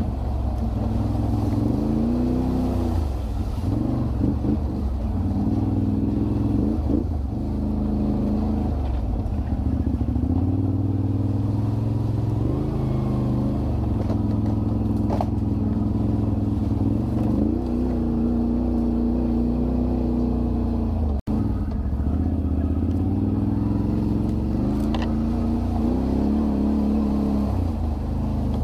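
ATV (quad bike) engines running over a rough off-road track, the revs repeatedly rising and falling as the throttle is worked. The sound cuts out for an instant about three-quarters of the way through.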